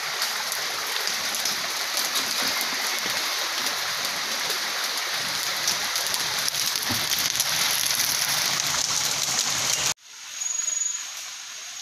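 Steady rush of river water running over rocks, an even hiss. About ten seconds in it cuts off abruptly to a quieter background with a thin, high steady tone that comes and goes.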